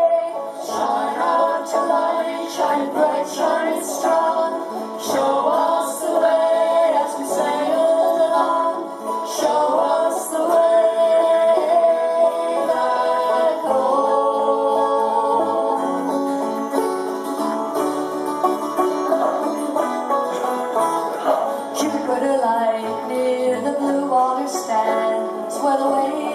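Acoustic folk string band playing an instrumental break: a strummed acoustic guitar with mandolin-family instruments picking the melody in quick plucked notes.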